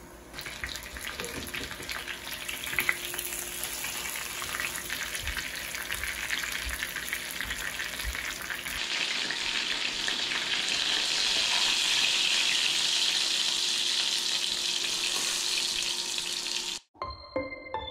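Food frying in a pan, crackling and sizzling. About halfway, after a cut, it turns into a steadier, louder sizzle that stops abruptly near the end.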